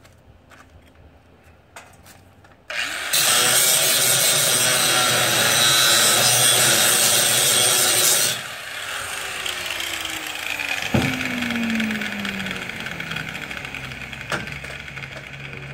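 Angle grinder starting up and grinding a slipped tack weld off a steel angle-iron brace for about five seconds, then released and spinning down with a falling whine. A sharp knock comes during the spin-down and another near the end.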